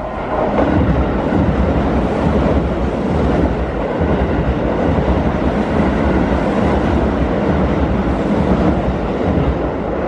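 Keio Line electric commuter train running through a level crossing, its wheels rumbling and clattering over the rails. The noise comes up sharply about half a second in, stays loud and steady, and eases off near the end as the train clears.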